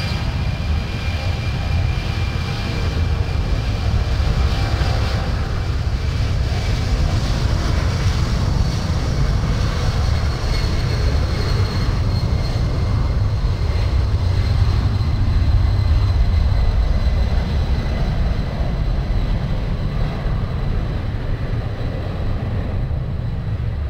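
Jet engines of a Boeing C-17 Globemaster III, four turbofans, running. There is a strong low rumble and a high whine that slowly falls in pitch.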